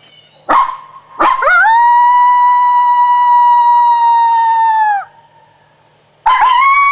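Coyote lone howl blown on a three-reed adult howler diaphragm call: a short sharp bark-like note, then a howl that rises quickly, holds one pitch for about three seconds and drops off at the end. A second howl begins near the end.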